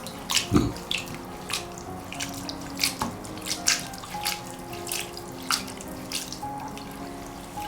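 Water splashing in short, irregular bursts as soaked, shredded pomelo peel is rinsed clean in water, to wash off its bitterness.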